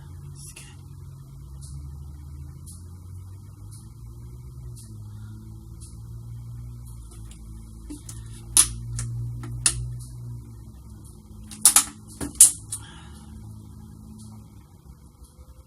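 Low steady hum with faint ticks about once a second, and a cluster of sharp clicks or crackles around the middle: two, then a pause, then four close together.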